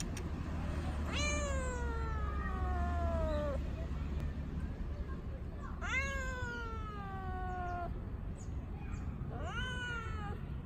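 A young tabby-and-white cat meowing three times. The meows are long and drawn out, each jumping up in pitch and then sliding slowly down. The first is the longest at about two seconds, and the last, near the end, is shorter. The owner takes the meows for asking for a treat.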